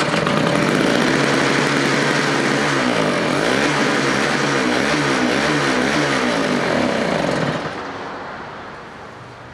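Two-stroke snowblower engine running fast on full choke just after a cold pull-start. Its pitch wavers in the middle, and the level falls off about three-quarters of the way through.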